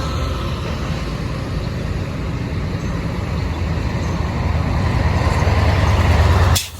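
Heavy diesel engine of an excavator running under load as it drives down off a lowboy truck, a steady low rumble that grows louder over the last couple of seconds, then a sharp click and an abrupt break near the end.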